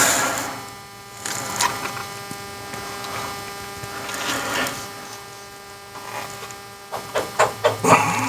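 Flathead screwdrivers prying and scraping at the sealed seam between an ABS module's aluminium housing and top plate: scattered scrapes and clicks, with a quick run of sharper clicks near the end, over a steady electrical hum.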